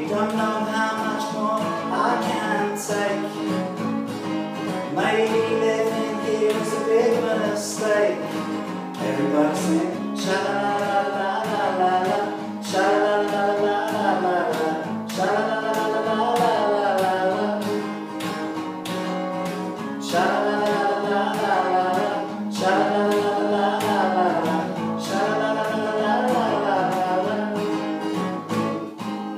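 A man singing while strumming an acoustic guitar with a capo, in a tiled bathroom. Sung phrases come and go over steady strumming.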